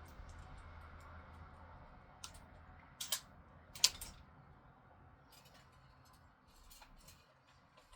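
A few light clicks and taps from small hardware being handled, the sharpest about four seconds in, over a faint low hum.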